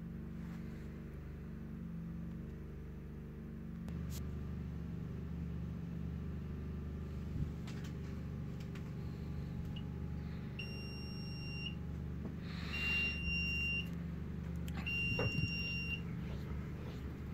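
Three electronic beeps, each about a second long, from a milling machine's digital readout console as it is set up. Under them runs a steady low machine hum that gets a little louder about four seconds in.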